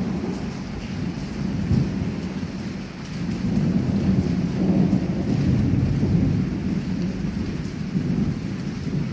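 Heavy rain with rolling thunder rumbling continuously; the rumble dips briefly and then swells again about three seconds in.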